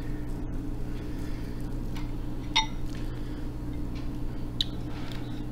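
A steady electrical hum, with a few faint clicks and a light clink about two and a half seconds in, from fingers handling snow crab meat and dipping it into a glass bowl of sauce.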